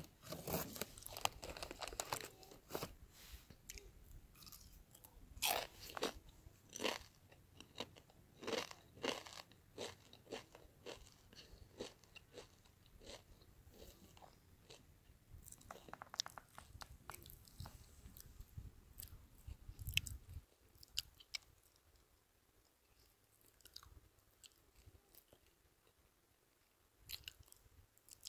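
Someone chewing crunchy food close to the microphone: irregular crisp crunches, thick in the first nine seconds, then sparser and fainter.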